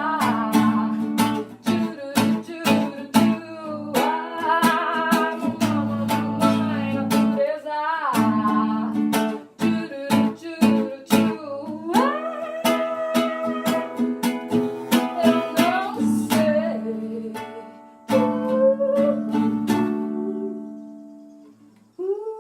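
Singing with a strummed acoustic guitar (violão), a voice-and-guitar performance of a Brazilian rock song. The strumming breaks off about sixteen seconds in, then a single strum near eighteen seconds is left to ring and fade towards the end.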